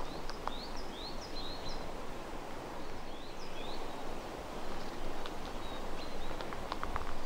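Footsteps rustling over needles and twigs on a forest floor, with a few sharp ticks near the end. A small songbird sings two quick runs of short rising chirps, one near the start and one about three seconds in.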